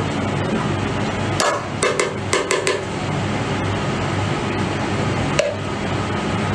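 A quick cluster of sharp clicks and knocks between about one and a half and three seconds in, and a single one near the end, as a plastic jar is tipped and tapped to empty braised squid onto a tray. A steady background hum runs underneath.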